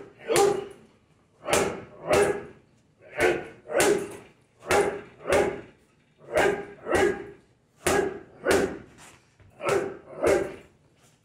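Boxing gloves striking a hanging heavy bag in quick pairs of punches, one-two combinations. There are about seven pairs, one every second and a half or so, and each punch lands as a sharp impact.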